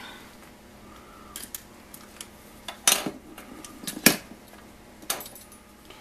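Plastic housing of a Leviton 20-amp GFCI receptacle being pried apart by hand: scattered clicks and snaps, the sharpest about three and four seconds in.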